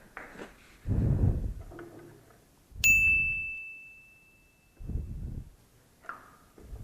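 Metal wrenches working the motorcycle's chain adjuster: several dull knocks and clunks, and about three seconds in one sharp metal clink that rings on in a clear high tone for over a second.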